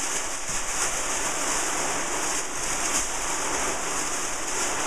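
Continuous rustling and crinkling of kite fabric as a parafoil kite's panels are handled and rolled up, an uneven hiss that swells and eases.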